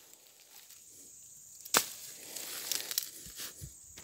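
Dry undergrowth and fern stems being pushed through: one sharp snap a little under halfway through, then a few lighter cracks and rustles.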